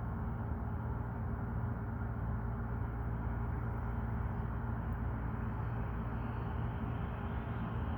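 Steady low rumble of distant city traffic, with a faint constant hum.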